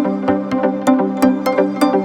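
Background electronic music with a steady beat and sustained synth notes.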